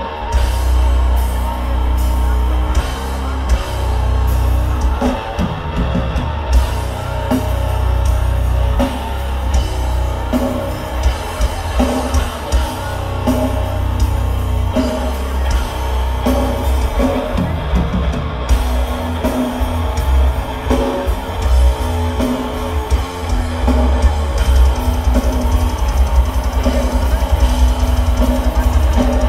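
A heavy metal band playing live at full volume: distorted electric guitars, bass guitar and a drum kit. In the last several seconds the drumming turns to fast, close-spaced strokes.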